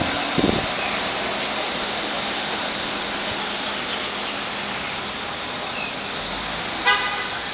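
Steady hiss of outdoor background noise, with a short, sharp squeak near the end that is the loudest sound.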